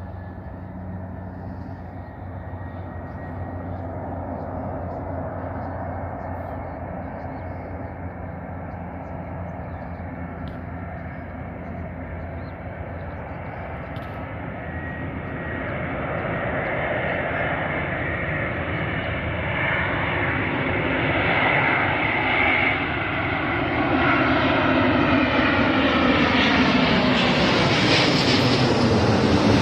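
Airbus A350 jet engines (Rolls-Royce Trent XWB turbofans) running as the airliner approaches and passes close by. The jet noise grows steadily louder over the second half, with sweeping tones sliding down in pitch as it comes closest near the end.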